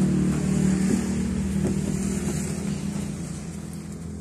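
A motor vehicle engine running with a steady low hum that slowly fades toward the end.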